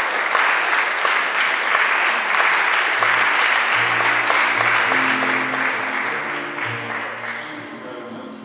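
Audience applause that slowly fades away, while background music with slow, held notes comes in about three seconds in.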